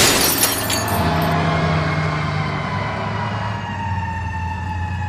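Car-crash sound effect: a loud smash right at the start, then a slowly falling, siren-like wail over a low steady hum.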